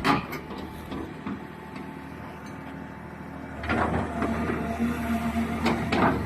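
Caterpillar 320 excavator's C7.1 six-cylinder diesel engine running steadily. It grows louder a little past halfway, with a few sharp knocks.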